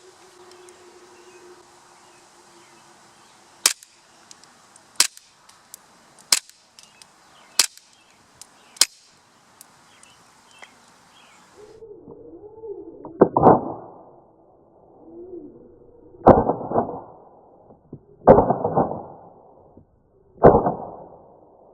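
Marushin CZ75 gas-blowback airsoft pistol, run on HFC134a duster gas, firing single shots: about five sharp cracks roughly a second and a half apart. In the second half come four lower, smeared bangs a few seconds apart, with wavering low tones between them.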